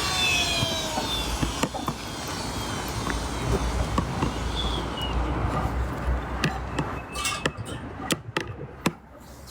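Outdoor street noise with a steady low rumble. A siren's falling wail fades out about a second in, and irregular sharp knocks and clicks come in the last few seconds.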